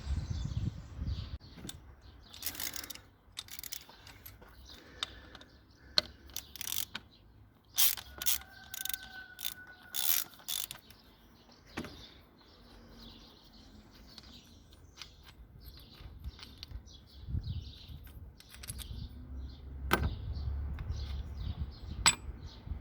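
Hand tools working on car engine parts: scattered metallic clicks, clinks and ratchet-like ticks, with a brief squeak partway through and a low rumble near the end.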